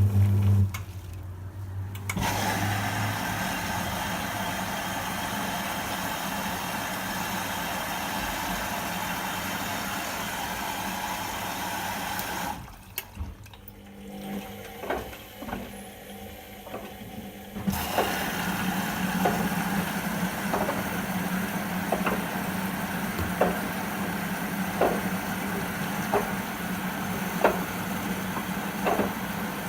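Whirlpool washing machine on a 60° synthetics cycle, tumbling its wash: the motor hums as the drum turns, stops briefly near the start and again for about five seconds in the middle, then turns again. Light clicks come about every second and a half as the drum turns.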